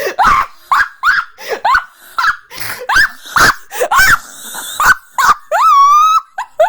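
A man laughing helplessly in high-pitched wheezing squeaks, two or three a second, with one longer rising squeal near the end.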